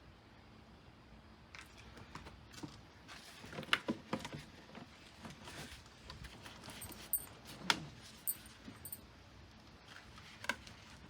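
Scattered light clicks, knocks and rattles of objects being handled, loudest about four seconds in and again near eight seconds.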